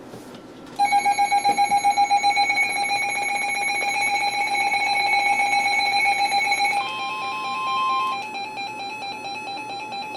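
Emergency Alert System attention signal: a loud, steady, harsh alert tone that starts about a second in and marks the start of a new warning. Near seven seconds the sound changes, and a second steady tone sounds on top for about a second.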